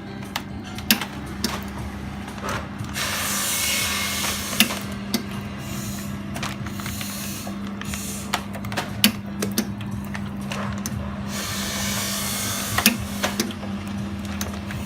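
FRD-1000 continuous band sealer running: a steady motor hum with scattered sharp clicks. Two stretches of louder hiss come in, about three seconds in and again about eleven seconds in.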